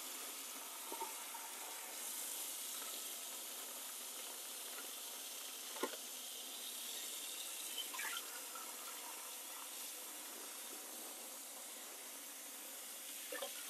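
Kitchen faucet running steadily into a stainless steel pot in the sink, filling it with water. A few brief knocks come about six and eight seconds in and near the end.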